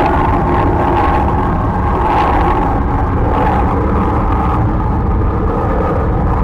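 Steady, loud rumbling noise of a rocket engine sound effect, swelling briefly now and then.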